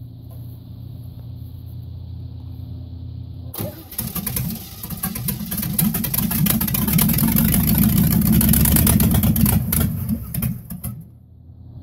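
Chevrolet 305 small-block V8 in a Jeep M38A1, running on its first start after sitting unused for a couple of years. It idles steadily at first. About three and a half seconds in it revs up hard and runs loud and rough for around six seconds, then drops back toward idle near the end.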